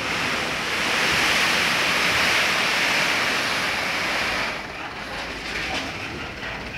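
Merapi sand sliding out of a tipped Mitsubishi Canter dump truck's steel bed: a loud, even rushing hiss that starts suddenly and eases off about four and a half seconds in, with the truck's engine running underneath.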